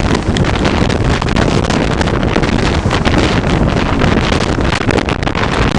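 Strong gusty wind buffeting the microphone over the rumble of a four-engine jet airliner's engines as it rolls out on the runway after landing.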